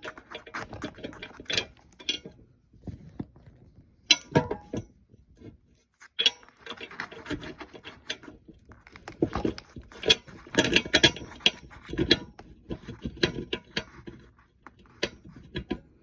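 A screw being worked by hand into a hole in a plate, with irregular clicks, taps and scrapes of the screw against the plate, busiest about two-thirds of the way through.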